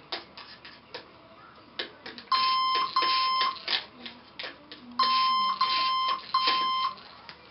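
Lego Mindstorms brick beeping a steady electronic tone: two half-second beeps about two seconds in, then three more about five seconds in, all at the same pitch. Scattered light clicks of the plastic mechanism come in between.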